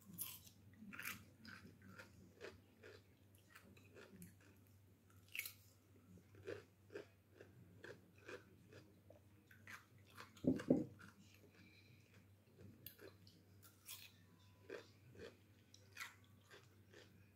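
Close-up eating sounds: irregular chewing, biting and crunching, with a louder double thump about ten and a half seconds in.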